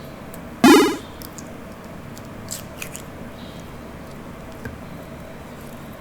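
Close-miked eating sounds: one short, loud, wet squelch about half a second in, then a few faint mouth clicks.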